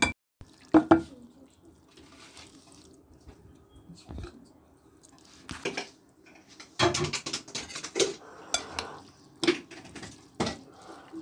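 Metal spoon stirring a yogurt and boondi mixture, clinking and scraping against a glass bowl in irregular strokes that come thickest in the second half.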